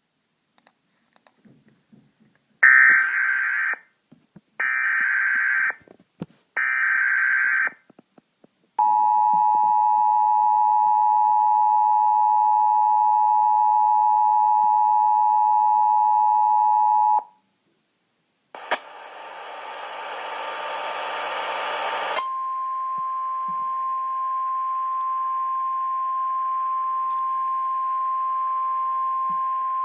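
Emergency Alert System tornado-warning tones. First come three short bursts of warbling data noise (the SAME header), then the two-tone EAS attention signal held for about eight seconds. After a short silence there are a few seconds of static hiss, then a steady single alert tone, like the NOAA Weather Radio warning alarm, runs on over the hiss.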